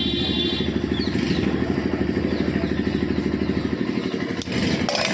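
A motorcycle engine idling steadily, with an even, rapid put-put beat. It dips briefly with a sharp click about four seconds in.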